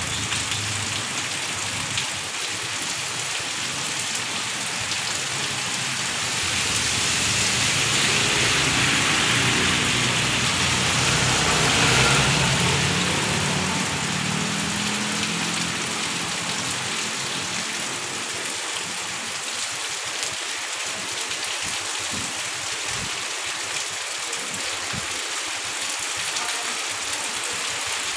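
Heavy rain pouring steadily onto a street and garden. It swells louder for several seconds in the middle, then eases back.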